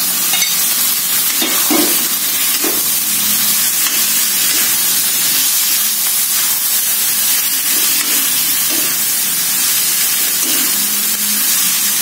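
Raw chicken pieces and button mushrooms sizzling in hot oil in a wok. A spatula stirs them, with scattered scrapes and light knocks against the pan.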